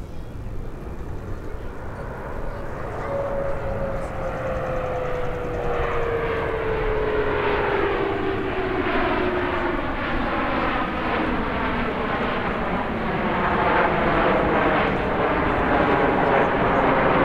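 A formation of CT-114 Tutor jet trainers flying past, their single turbojet engines making a steady jet noise that grows louder from about five seconds in. A whine glides slowly down in pitch over several seconds in the first half.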